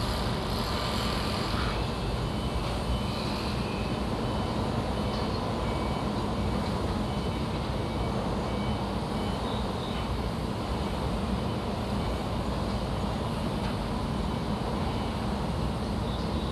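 Construction site ambience: a steady low rumble of engines and machinery, with faint high tones in the first few seconds.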